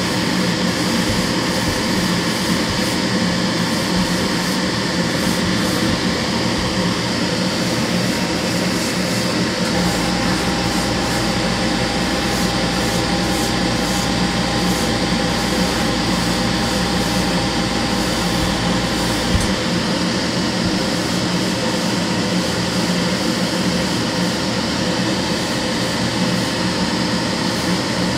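Spray booth extractor fan and airbrush compressor running, a steady loud rush of air. About ten seconds in, a deeper hum with a faint steady whine joins for about ten seconds, then cuts off.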